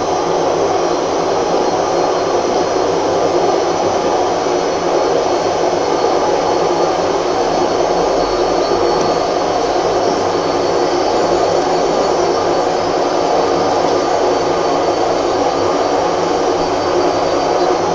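A steady, loud mechanical whirring drone, like a motor running, unchanging throughout.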